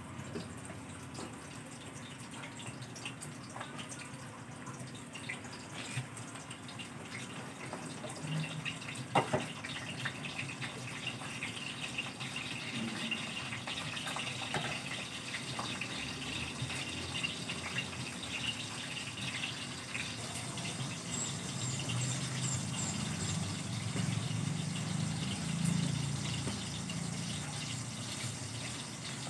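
Water running steadily from a garden hose, with a sharp knock about nine seconds in.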